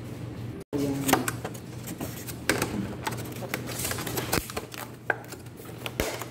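Clear plastic takeout container crackling and clicking as it is handled and its snap lid is pried open, with many irregular sharp clicks.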